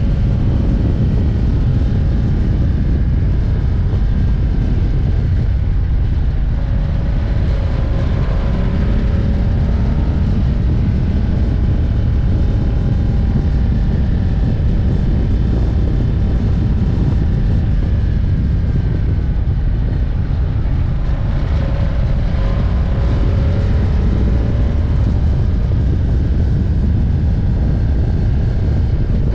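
Ducati Diavel V-twin motorcycle riding at road speed: a heavy, steady rush of wind on the microphone over the engine's note, which rises and falls about eight seconds in and again a little past twenty seconds as the throttle changes.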